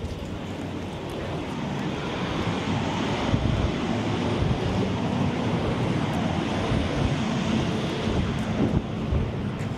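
Steady rushing noise of street traffic and wind buffeting the microphone, swelling slightly a couple of seconds in.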